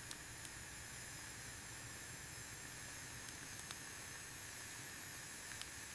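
Faint steady hiss of cooking on a hot gas stove, with a few faint ticks.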